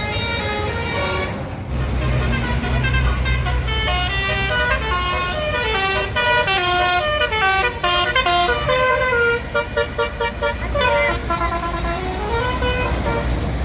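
Telolet basuri bus horns playing a tune of held notes that step up and down in pitch, breaking into short rapid repeated notes around two-thirds of the way through, over the low rumble of passing buses.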